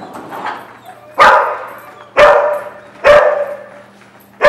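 Dog barking repeatedly, loud sharp barks about once a second, echoing in a large hall.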